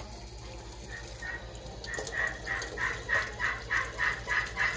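Domestic fowl calling in a fast, even series of harsh calls, about three a second, starting about two seconds in after a couple of single calls. A kitchen tap runs underneath.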